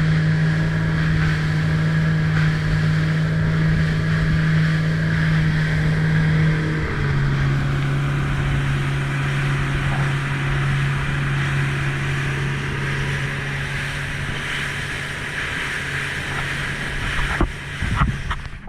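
Motorboat engine running steadily under way, its tone dropping a step about seven seconds in as it eases off, with wind and water noise around it. A few knocks sound near the end.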